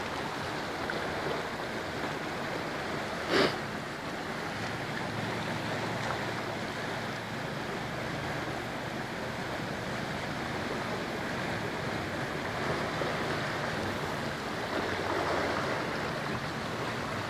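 Steady rush of a large, fast-flowing river, with one brief sharp sound about three and a half seconds in.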